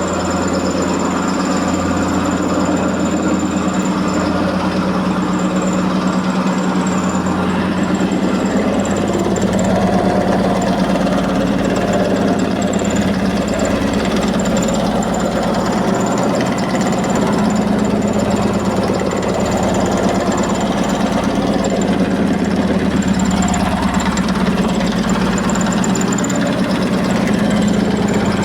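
Electrolux 15 kg commercial washing machine spinning with a badly unbalanced load: a steady motor hum with a fast, continuous knocking and rattling as the drum shakes.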